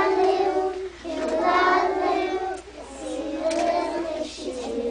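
Young children singing a song together in short phrases, growing softer in the last couple of seconds.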